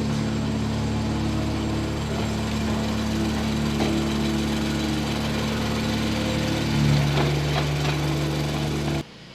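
An engine running steadily, its pitch shifting and briefly getting louder about seven seconds in, then cutting off suddenly near the end.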